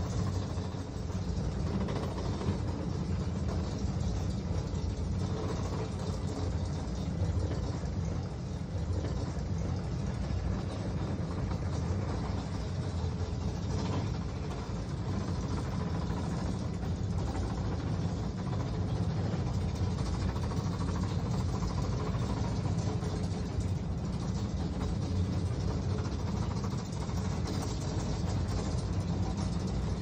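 Small engine of a monorail car running steadily with a low rumble as the car travels along a steep, winding track.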